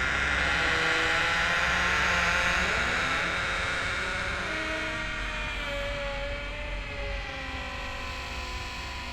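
A slow, drawn-out door creak: several wavering tones over a steady hiss, easing down slightly as it goes.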